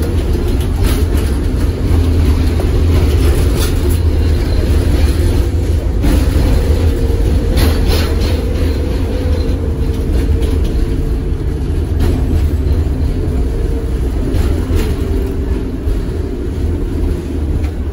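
Tatra KT4D articulated tram running along the line, heard from on board: a steady low rumble of wheels on rails with a faint whine through the middle stretch. A few sharp clicks and knocks are scattered through it.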